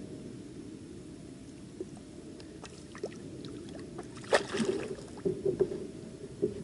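Fishing tackle handled in a kayak: a low, steady rumble, then a cluster of sharp knocks and rattles about four seconds in as a fishing rod is lifted and its line pulled in by hand, with one more knock near the end.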